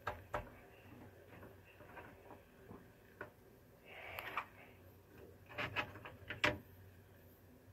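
Light clicks and taps of 3D-printed plastic parts being handled and fitted together, with a brief rustle about four seconds in and a quick run of sharper clicks a little after.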